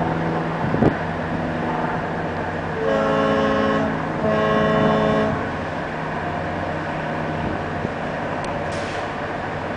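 A tugboat's diesel engines run with a steady low drone. About three seconds in, a boat horn sounds two blasts of about a second each, one close after the other.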